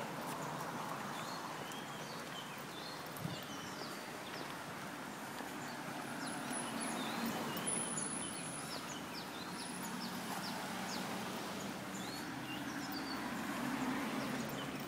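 Outdoor ambience: many short bird chirps and quick whistles scattered throughout, over a steady low background rumble.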